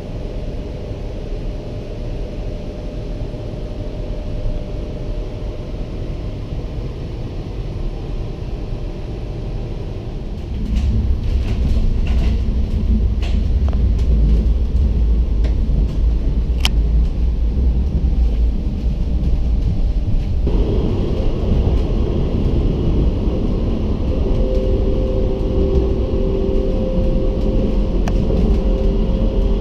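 CAF Urbos 3 tram heard from inside the passenger cabin while running: a steady low rumble of the wheels and running gear that grows louder about a third of the way in. A few clicks and one sharp tick come in the middle, and two steady humming tones join near the end.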